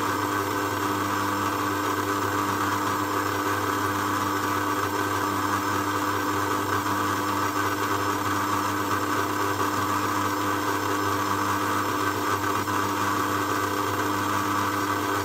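Electric stand mixer running at a steady speed, its motor giving an even hum as it mixes flour into brownie batter.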